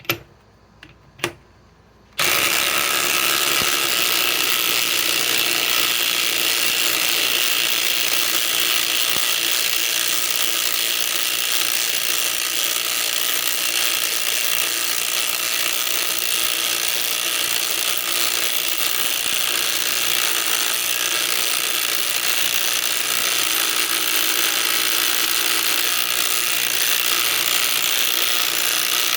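Cordless impact wrenches, a Flex FX1431 and a DeWalt Atomic DCF921, hammering continuously as they drive large fasteners in, a loud steady rattle that starts about two seconds in after two sharp clicks.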